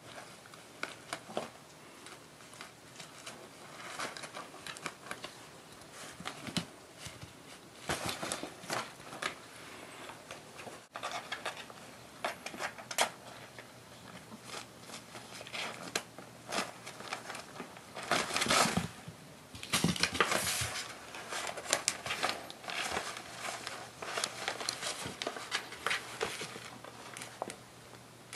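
Paper courier envelope crinkling and rustling in irregular short bursts as a kitten wriggles and plays inside it, with the loudest flurries about two-thirds of the way through.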